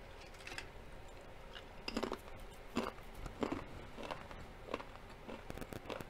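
Close-up chewing of a crunchy vegetable chip: a run of short, irregular crunches and crackles, roughly one or two a second.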